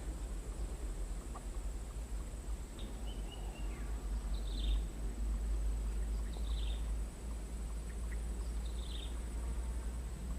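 A bird calling: a short high chirp repeated about every two seconds, with a longer falling call just before the first one. Under it runs a steady thin insect drone and a low rumble.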